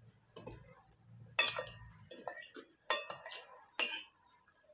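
Cutlery clinking and scraping against dishes: a few sharp clatters, the loudest about a second and a half in, around three seconds and near four seconds.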